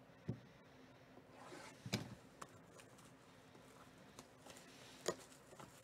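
Fingers handling a shrink-wrapped cardboard trading-card box and picking at its plastic wrap: faint crinkling with a few sharp taps and clicks, the loudest about two seconds in.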